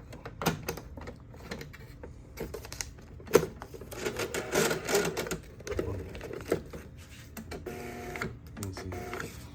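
Epson TM-U220PA dot matrix receipt printer being handled and closed up: sharp plastic clicks, the loudest about three and a half seconds in, then a buzzing mechanical rattle for a second or so.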